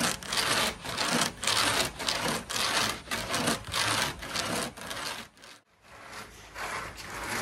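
Sago palm pith being grated by hand on a board of nails: rhythmic rasping strokes at about two a second. They break off briefly about five and a half seconds in, then go on more quietly.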